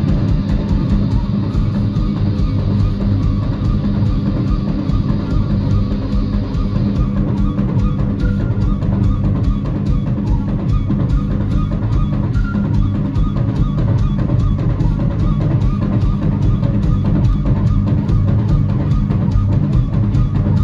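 Live amplified band playing: a drum kit keeps a fast, steady beat under electric guitar and a flute.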